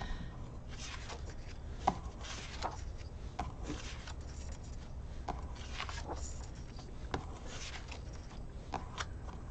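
Loose hole-punched A5 planner insert pages being turned and handled by hand: scattered paper rustles and light taps throughout.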